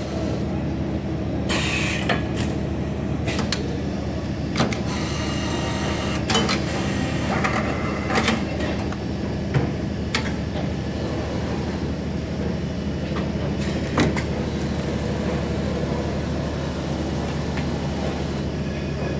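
Automatic wire coiling, tying and packing machine running with a steady hum, with scattered clicks and clunks as it straps a coil of wire and moves it onto the roller conveyor. A short hiss comes about two seconds in.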